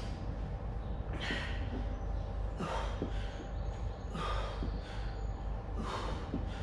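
A man breathing hard through an exercise set, a short forceful out-breath about every second and a half, four times, as he sits up on each single-leg V-sit rep.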